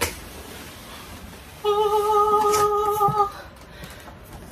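A woman hums one steady note for about a second and a half in the middle, while the cardboard box is handled; a short knock sounds right at the start.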